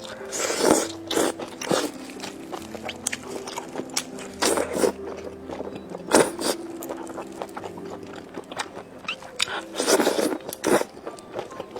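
Close-miked eating: crunchy bites into fried skewer food and chewing, with sharp crunches at irregular intervals and the loudest bites near the middle and near the end.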